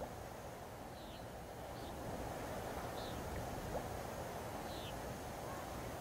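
Steady wash of ocean surf, with four short high bird chirps, each dropping in pitch, scattered through it.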